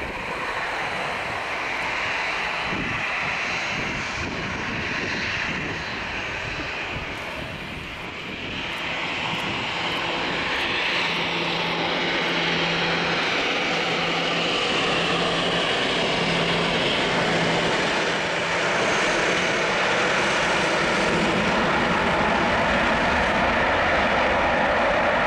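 Boeing 747-400's four turbofan engines running as the jet comes over on short final, with a steady jet noise. From about ten seconds in the sound grows louder and stays loud as the jet touches down and rolls out along the runway.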